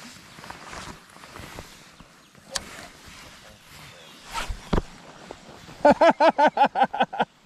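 A person laughing: a quick run of about a dozen loud, short 'ha's near the end, after quieter rustling and a couple of knocks.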